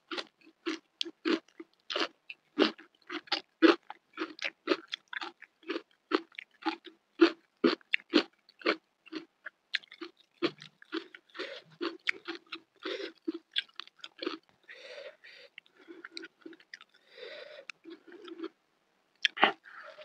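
Close-miked chewing of a mouthful of bean sprouts, fried tofu and rice: crisp crunches, about two or three a second, turning softer and wetter a few seconds before the end. A pause follows, then one loud crunch as a new bite is taken.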